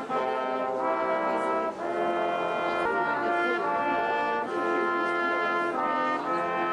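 Brass instruments playing slow, held chords that change about once a second.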